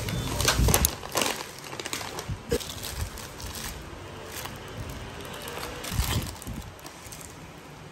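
Paper pastry bag rustling and crinkling as it is handled, with scattered light clicks and a soft thump about six seconds in as a brownie is slid out onto a ceramic plate.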